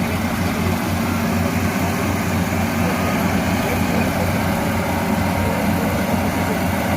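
Combine harvester running, its engine a steady drone with a rapid low throb and machinery noise over it.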